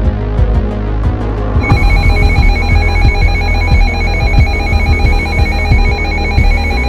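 Music with a throbbing low bass, joined about a second and a half in by a trilling electronic ring like a telephone ringtone. The ring carries on over the music.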